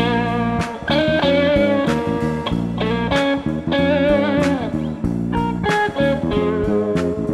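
Background music: a guitar-led band track with a steady beat and some bending guitar notes.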